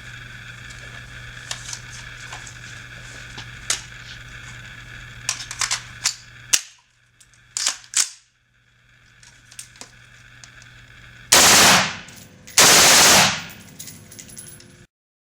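Two short full-automatic bursts from an AR-15 rifle converted with an auto sear, about eleven seconds in and a second later, each under a second long, the shots running together, very loud and clipped. Before them come scattered clicks over a steady hum.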